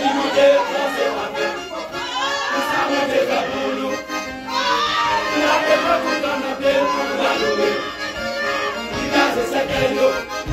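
A choir singing a gospel song with accordion accompaniment.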